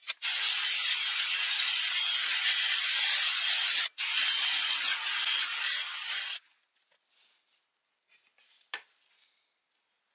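Foam polishing pad on a rotary tool buffing the flat of a steel knife blade: a steady rubbing hiss that breaks off for a moment about four seconds in and stops after about six seconds. A single light click follows near the end.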